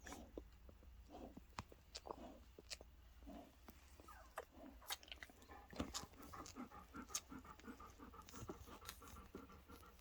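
Faint sounds of newborn golden retriever puppies nursing: soft suckling and smacking clicks with small grunts. Through the second half comes a quick, regular run of faint little squeaks.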